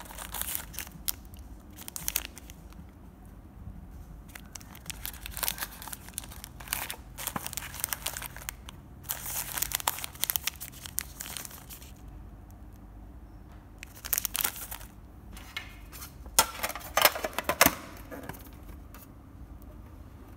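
Thin plastic cookie wrappers crinkling and rustling as wrapped cookies are handled and shuffled about in a tin, in irregular bursts. Near the end comes a cluster of louder, sharper clatters from the tin.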